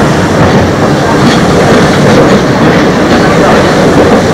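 Eizan Electric Railway electric train with nose-suspended traction motors running at speed, heard aboard: a steady rumble of motors and wheels with light clicking over rail joints.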